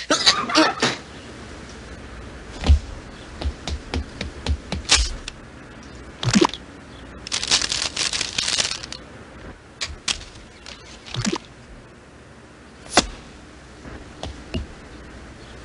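Cartoon sound effects of small handling noises: scattered sharp clicks and taps, with a longer rustle a little after the middle, over a faint steady hiss.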